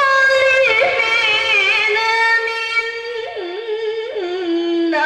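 A woman's solo voice through a microphone, chanting an Arabic devotional melody in long held, ornamented notes that step down in pitch, with no instruments.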